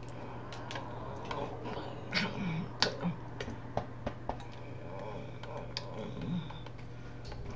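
Irregular light clicks and taps of hands striking each other while signing, rings and watch knocking, over a steady low electrical hum, with a few faint brief mouth sounds.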